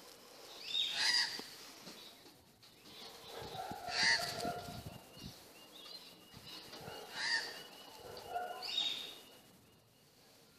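Birds calling: a handful of loud calls a second or more apart.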